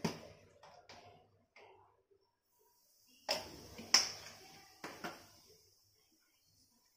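Small clicks of a plastic spice jar being opened, then three sharp metal clinks about a second apart as turmeric is spooned into hot oil in a metal kadai, with a faint sizzle that fades away.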